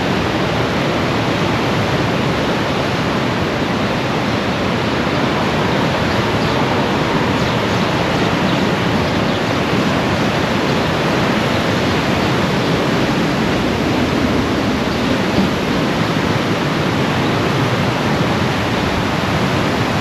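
Flooded Trinity River raging over a spillway: a loud, steady rush of fast-moving water.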